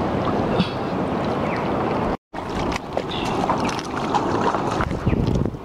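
Shallow reef water sloshing and splashing around a wader's hands and legs as a large octopus is pulled from the water, with wind on the microphone. The sound cuts out for a moment about two seconds in.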